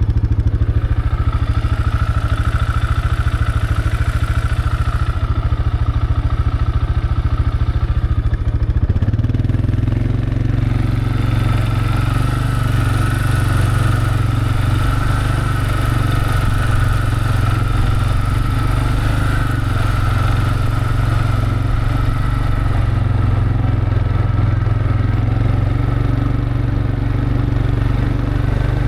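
A vehicle engine running steadily with a strong low rumble. Its note changes about nine seconds in, from a pulsing chug to a smoother drone.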